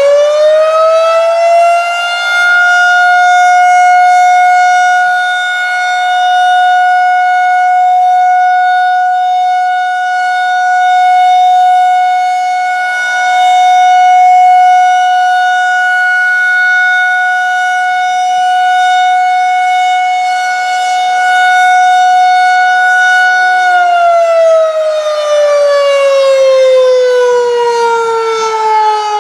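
Federal Signal 2001-130 rotating electromechanical warning siren on its daily test: it finishes winding up to a steady high wail, holds it with the loudness slowly swelling and fading as it rotates, then winds down with falling pitch about 24 seconds in.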